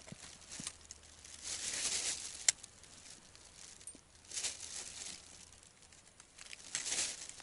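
Winter clothing and gear rustling close by in several short bursts, with a single sharp click about two and a half seconds in.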